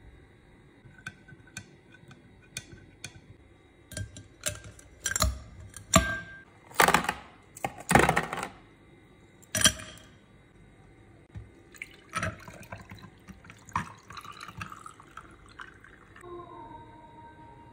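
A spoon clinking lightly against a drinking glass, then ice cubes dropped into an empty tall glass with about half a dozen loud clinks and knocks. Juice is then poured over the ice with a crackly fizzing hiss, and music comes in near the end.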